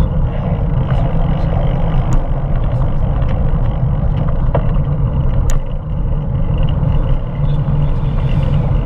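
Steady wind buffeting on the microphone of a camera riding along a street, with road rumble and a few sharp clicks.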